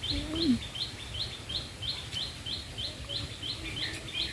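A small bird calling, a short high chirp repeated evenly about three times a second.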